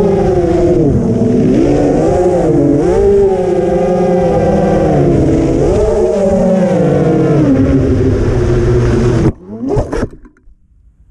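Motors and propellers of a 5-inch X-Hover Win5 FPV quadcopter whining, the pitch rising and falling with the throttle. About nine seconds in the whine cuts off suddenly as the quad comes down in the grass. A short rising whine follows, then it goes quiet.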